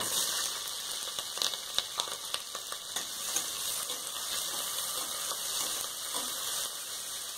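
Sliced onions and green chillies hit hot oil in a pressure cooker and sizzle steadily, starting all at once as they go in, while being stirred around the pot.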